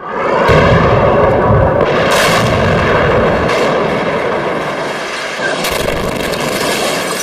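Explosion: a loud blast that starts suddenly and rumbles on, slowly fading, with a few sharper cracks along the way.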